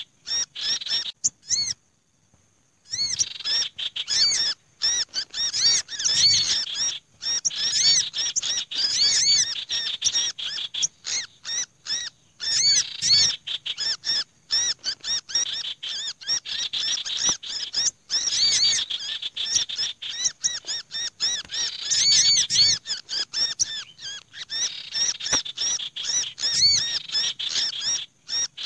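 Bird-trapping lure recording: a dense mix of agitated small-songbird calls, the noisy chatter of birds in distress, combining the calls of little spiderhunter, black-naped monarch and another small songbird. Rapid high chirps and chattering come in busy stretches broken by short pauses, with a near-silent gap about two seconds in.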